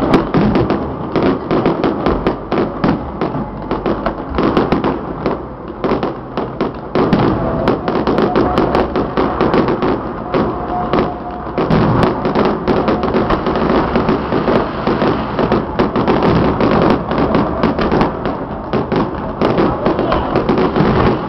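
Fireworks and firecrackers going off in a rapid, continuous crackle of many small bangs.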